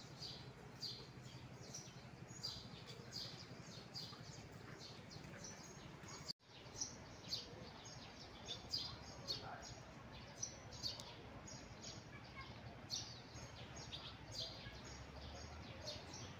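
Small birds chirping: many short, high chirps repeated over and over above a steady low hum and background noise, with the sound dropping out for an instant about six seconds in.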